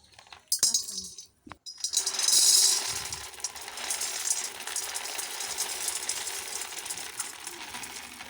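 Hard palm kernel nuts clattering and rattling in a pot as they are roasted and stirred. A brief clink comes about half a second in, then a loud rush of clatter at about two seconds settles into a continuous rattle.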